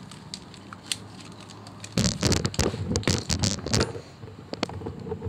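Wires and plastic connectors of a motorcycle wiring harness being handled, pulled apart and unplugged: scattered clicks at first, then a burst of loud crackling and rustling from about two seconds in, lasting a couple of seconds.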